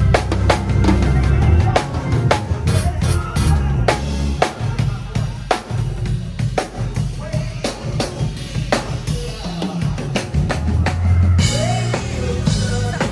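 Music led by a drum kit, with kick drum, snare and rimshot hits over a heavy bass line.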